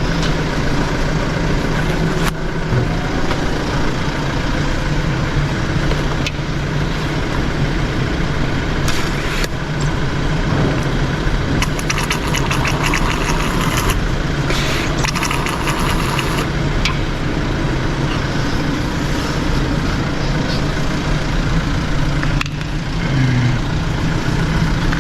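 Audi A5 engine idling steadily, keeping the automatic gearbox oil circulating for the level check. Short bursts of rapid clicking come over it around the middle.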